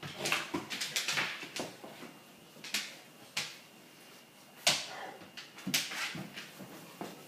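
A bullmastiff puppy and an English mastiff puppy play-fighting: scuffling, with irregular clicks and knocks of paws, claws and bodies, the sharpest knock a little past halfway.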